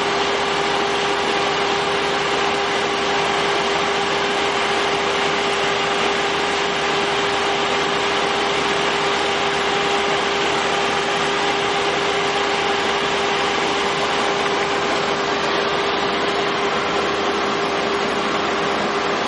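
Tracked hydraulic drilling rig running steadily, its engine and hydraulics giving a constant drone with a steady whine through it.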